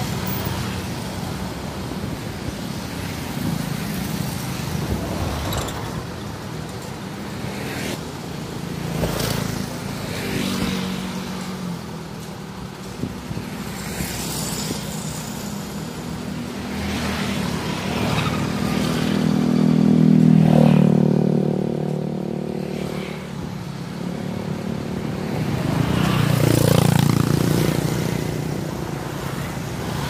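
Road traffic: motorcycles and other motor vehicles passing close by, a continuous engine hum that swells loudest about twenty seconds in and again near the end.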